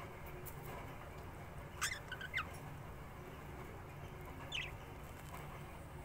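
Pet budgerigar chirping: a quick cluster of short, sharp chirps about two seconds in and a single chirp near the end, over a steady low hum.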